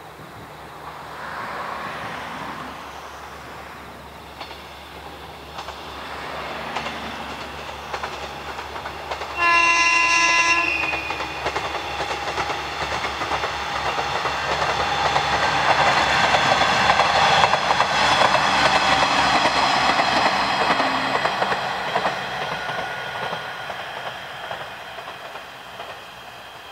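A two-car JR East KiHa 100 series diesel railcar passing. It sounds its horn once, a blast of a little over a second about ten seconds in. Then the diesel engine and wheel noise swell as the train goes by and fade away.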